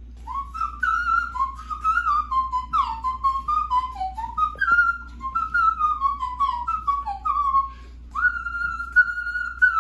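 A man whistling a fast melody through pursed lips, the notes darting up and down. About eight seconds in it breaks off briefly, then goes into a long held note.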